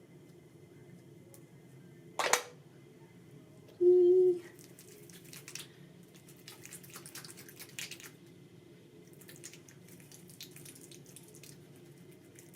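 Soft, wet, irregular clicking and smearing of a cleansing balm being worked over the face with the fingers, after a short sharp noise about two seconds in and a brief loud low tone about four seconds in.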